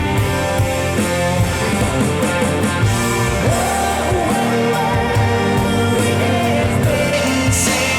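Rock music with electric guitar and a singing voice, played back through loudspeakers.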